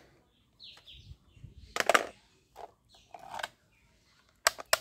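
Plastic toy shotgun being handled, giving a few sharp clicks and knocks, the loudest about two seconds in and a quick pair near the end. A small bird chirps briefly a couple of times.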